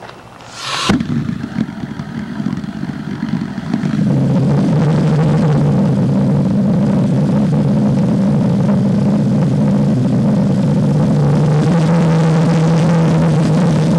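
Gluhareff G8-2 propane pressure jet engine lighting and coming up to power: a short hiss about half a second in, a sudden pop near one second, then an uneven, rising rush of noise that settles about four seconds in into a loud, steady running noise with a strong low drone.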